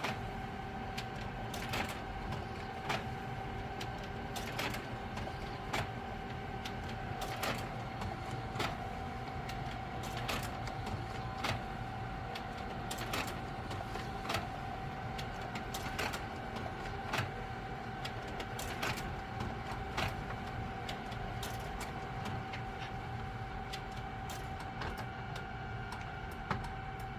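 Printer running through a long print job: a steady motor whine and hum, with a sharp click about every one and a half seconds as each page goes through.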